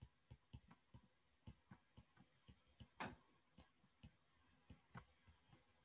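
Faint, irregular ticks of a stylus tapping and stroking on a tablet screen during handwriting, a few per second, with one slightly louder tap about three seconds in.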